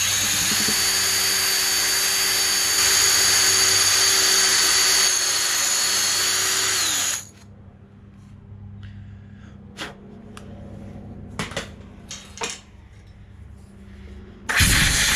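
Cordless drill spinning a wire wheel brush against a rusty carburetor float bowl to scour the rust out: a loud steady whine for about seven seconds, which then drops in pitch and stops as the drill winds down. A few light knocks follow, then near the end a short loud hiss of compressed air from a blow gun.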